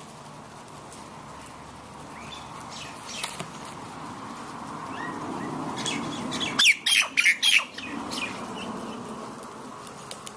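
Bird calls: a quick series of four or five loud, sharp, falling cries about two-thirds of the way in, with a few fainter calls before them, over a steady outdoor hiss.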